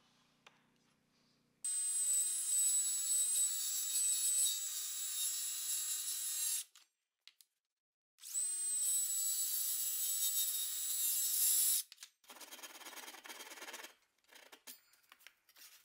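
Milwaukee circular saw cutting the horn notches into a cherry stool board. It makes two cuts of about five and three and a half seconds, each with a steady high whine, and stops dead between them. Near the end a Japanese ryoba hand saw finishes the cuts in two short runs of quick back-and-forth strokes.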